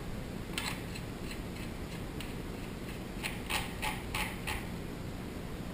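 Armsan A612 semi-automatic shotgun's magazine cap being screwed onto the magazine tube, clicking as it turns. There is one sharp click, a few faint ones, then a quicker run of about five clicks past the middle.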